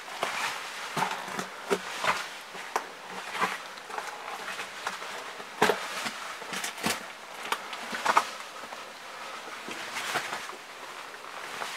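Irregular footsteps and scuffs on a gritty concrete floor inside a concrete bunker corridor, mixed with knocks from handling the camera: short sharp clicks at uneven intervals, the loudest a little before the middle.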